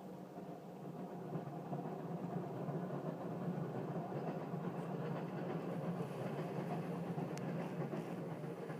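Domestic cat snoring in her sleep: a steady low rumble that grows a little louder over the first couple of seconds.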